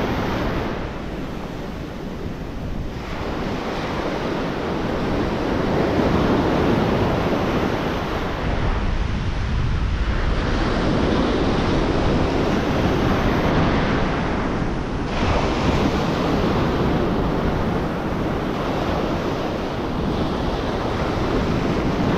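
Ocean surf breaking and washing up the beach, swelling and easing with each wave, with wind buffeting the microphone.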